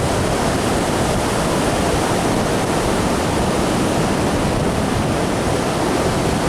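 Surf on a beach: a loud, steady rushing noise with no breaks.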